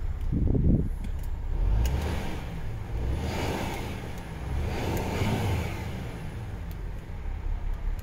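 MAN TGX 33.500's 12.4-litre straight-six diesel running in neutral, heard from inside the cab. It idles steadily with a few brief swells in engine sound.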